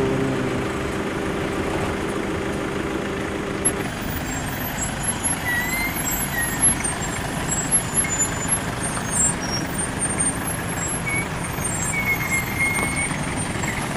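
Vehicle engines running slowly in a queue on a dirt road, with a steady engine hum that fades about four seconds in. A Toyota Hiace minibus then drives slowly past close by.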